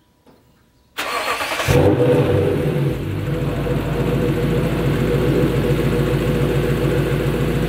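Lexus GS460's 4.6-litre V8 cranked by the starter, catching less than a second later and settling into a steady idle: the first start on a freshly fitted set of spark plugs.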